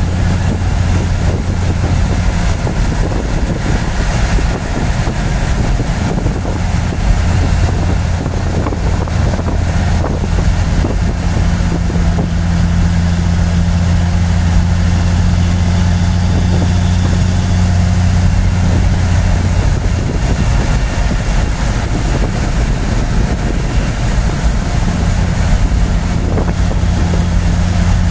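KTTA Cummins diesel in a Peterbilt 359 running steadily at highway speed, heard from inside the cab: a loud, even, deep engine drone over a haze of road and wind noise.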